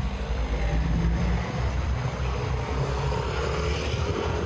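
A motor vehicle's engine running close by, a steady low rumble with a faint tone that rises slightly near the end.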